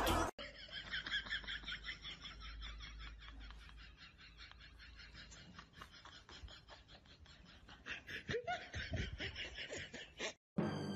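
A person laughing in quiet, rapid bursts that grow louder about eight seconds in, then cut off suddenly.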